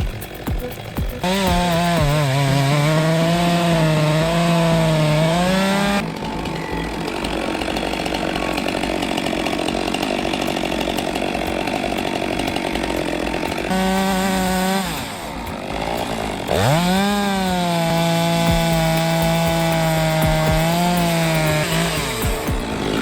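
Small two-stroke engine saw running under load and cutting wood, its pitch wavering and sagging as it bites. It drops off in the middle, where a rough rasping noise carries on, then revs sharply back up and keeps cutting.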